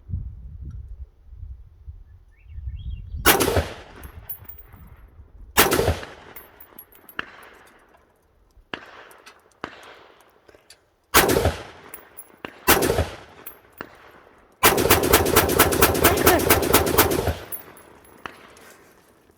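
AR-15 rifle firing: single shots at uneven intervals, each trailing off in an echo, then a rapid string of shots lasting about three seconds near the end.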